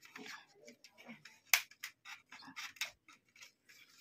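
Faint clicks and light rubbing from hands handling a plastic LED tube light housing while its supply wire is pushed into the housing. The clicks are irregular, and the sharpest comes about a second and a half in.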